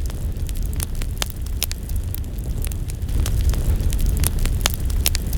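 Wind buffeting the microphone: a steady low rumble with scattered crackling clicks.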